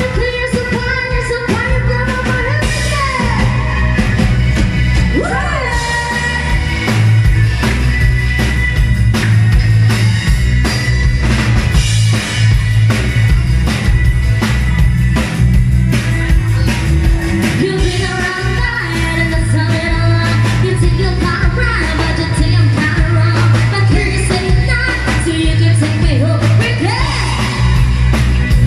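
Pop-rock song with a singer over a drum kit and heavy bass, loud and steady.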